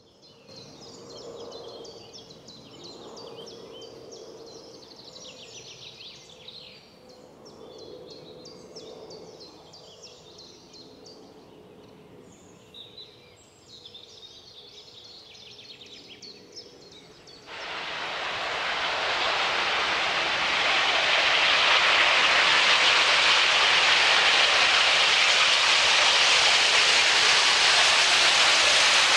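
Small birds singing with quick chirps over a faint steady hum. A little over halfway through this cuts suddenly to a loud, steady rushing of wind in the trees and over the microphone.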